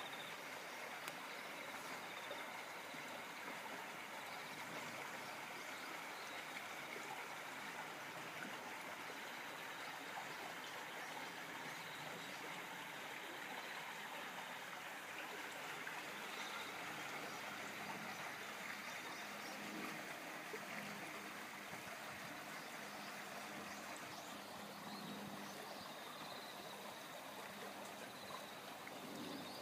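Steady, even rush of running water, with a faint high thin tone coming and going over it.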